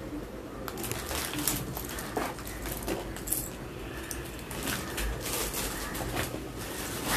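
Rustling and scattered light clicks and knocks of small objects being handled and moved close to a phone's microphone.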